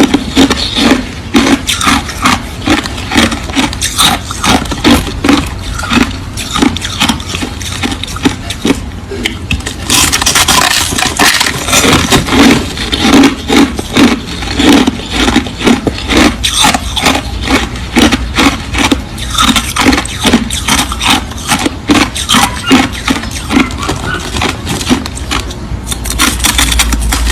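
Close-miked chewing of crushed ice: a dense, irregular run of crisp crunches, easing briefly a little before the middle and then picking up again.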